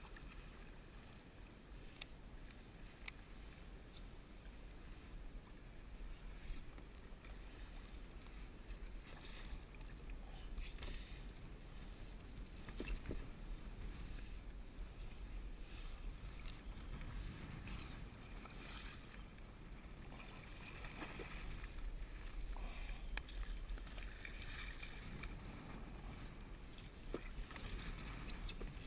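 Water lapping and splashing against a plastic kayak hull on choppy water, with a few sharp clicks and splashes standing out.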